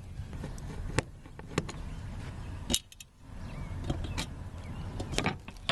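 Handling noise from a floor access cover over a fuel pump: about five sharp clicks and knocks spread out as the cover is worked loose and lifted.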